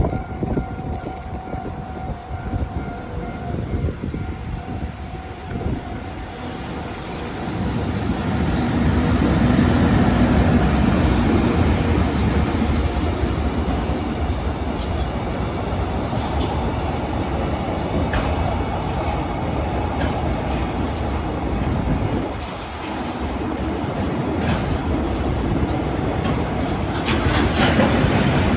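JR Freight EH500 electric locomotive hauling twelve Koki container wagons past a level crossing. The train grows much louder about seven seconds in as the locomotive goes by, then gives way to a long steady rumble of the wagons with wheels clicking over the rail joints. The crossing's warning bell rings at the start.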